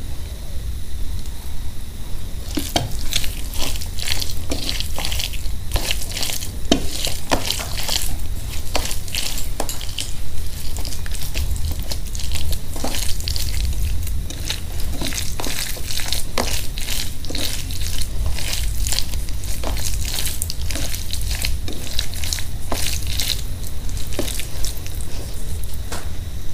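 A bare hand mashing and mixing spicy aloo bharta (mashed potato with onion and dried red chilli) with ghee on a steel plate, heard as a dense run of wet squishing and quick clicks.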